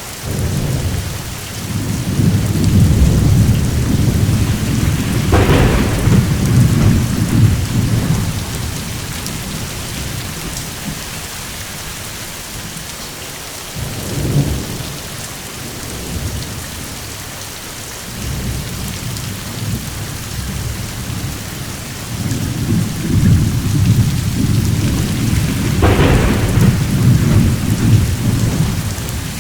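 Steady rain with thunder: two long, low rolls of thunder, each with a sharper crack in the middle, and a brief rumble between them.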